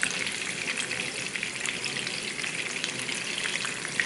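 Pieces of blacknose shark frying in oil and butter in a skillet: a steady sizzle, dotted with scattered crackling pops of spattering butter, as the pieces are turned with a fork.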